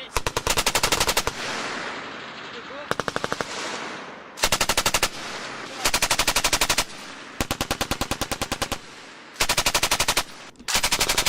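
Belt-fed machine gun firing seven short bursts of rapid automatic fire, each under a second to about a second and a half long, with echo rolling between bursts.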